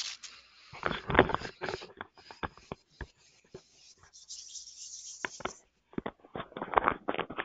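Indistinct, muffled voices and scattered clicks over a video-conference audio line, with a short hiss about four seconds in.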